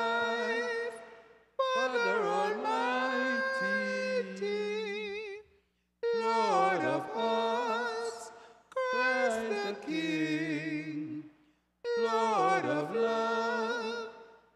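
Hymn sung in slow phrases of a few seconds each, with short breaks between them and a marked vibrato on the held notes: the entrance hymn of a Mass.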